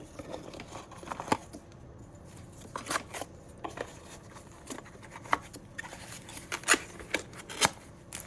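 Hands handling and opening product packaging: scattered crinkles, rustles and a dozen or so sharp clicks, with no steady sound between them.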